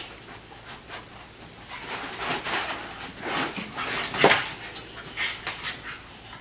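A mini goldendoodle panting in short, irregular, noisy breaths, the loudest a little past the middle.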